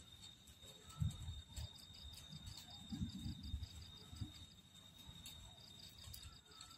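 Night-calling insects: a steady, high-pitched trill, with a quicker pulsing chirp joining for a couple of seconds, over scattered low thumps.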